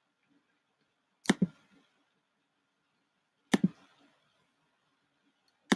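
Three sharp computer clicks about two seconds apart, each a quick press and release.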